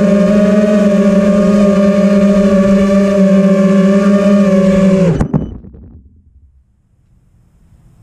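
FPV quadcopter's brushless motors and propellers whining at a steady pitch as it flies low. About five seconds in, the pitch sags, a brief clatter follows as it touches down on the porch's wooden deck, and the motors stop.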